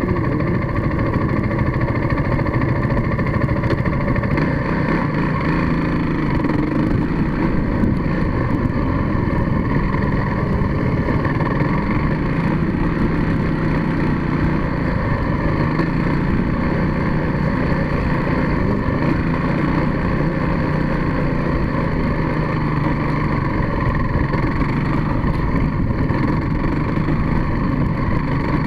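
Engine of a small vehicle running steadily at low speed, heard close up from on board as it moves along.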